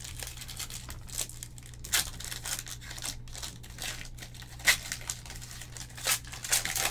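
Plastic wrapper of a basketball trading-card pack crinkling and tearing as it is ripped open by hand, a dense run of crackles with a few sharper snaps.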